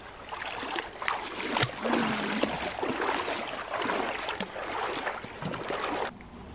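Water splashing and sloshing in irregular bursts as feet wade through a shallow stream, cutting off suddenly near the end.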